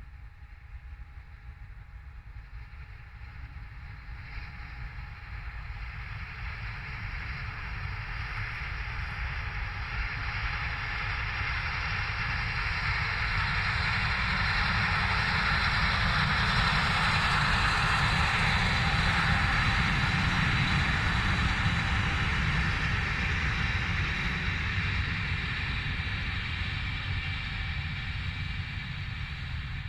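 A train running along the line, its noise growing steadily louder as it approaches, loudest about two-thirds of the way through, then easing slightly as it goes by.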